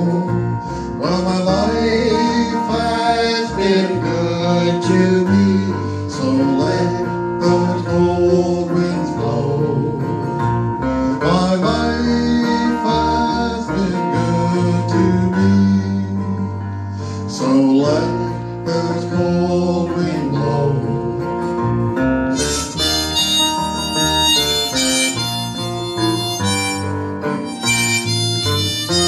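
Harmonica solo played over strummed acoustic guitar and electric bass: an instrumental break with no singing.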